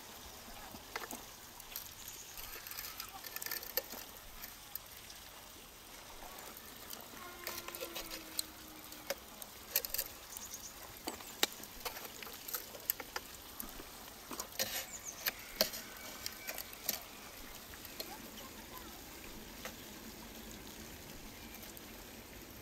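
Steel rotisserie spits loaded with whole chickens clicking and scraping against the bricks of a charcoal barbecue as they are set into their slots, in irregular clicks and knocks that thin out after the middle. A steady hiss runs underneath.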